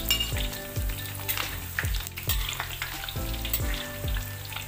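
Purple eggplant wedges sizzling and crackling in hot oil in a wok, as they are slid in from a plate with a metal spatula and stirred.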